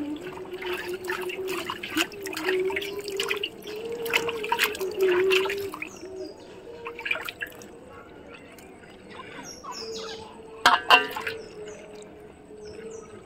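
Water splashing and dripping from a person bathing with poured water and washing her face, busiest in the first half, with one louder splash about eleven seconds in. Under it a wavering tone for the first six seconds, and faint bird chirps in the second half.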